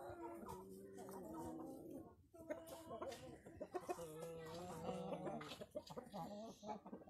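A flock of light Brahma chickens clucking, with a short pause a little over two seconds in.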